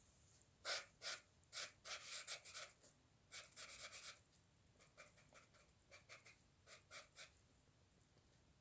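Pen or stylus strokes scratching on a drawing surface: short strokes in quick runs with brief pauses between them.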